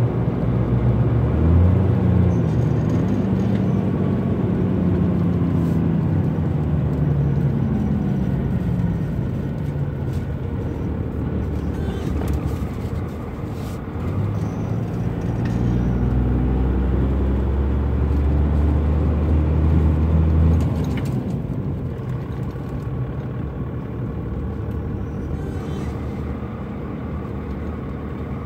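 12-valve Cummins diesel engine heard from inside the cab, pulling through the gears of a six-speed manual: the engine note climbs under acceleration, eases off, climbs again and drops away about 20 seconds in, as at a gear change.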